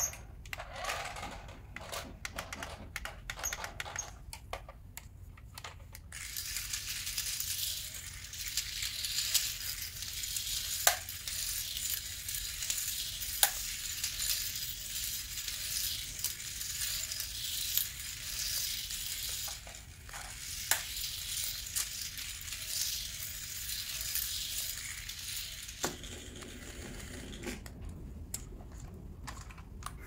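Remote-control toy's small electric motor and plastic gears running with a steady whirring hiss, broken by plastic clicks and rattles. The motor starts about six seconds in and stops a few seconds before the end, with only clicks and knocks before and after.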